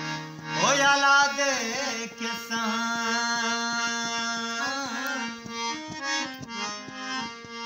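Bina harmonium playing held reed chords and a melody line, with a man's wordless singing that glides up and wavers in pitch as the song's introduction.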